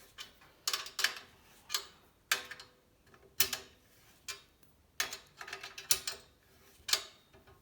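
Scattered sharp metallic clicks and taps, about ten irregularly spaced, some with a brief ring, from hand tools working the spreader on a steel bicycle frame's rear triangle during cold setting.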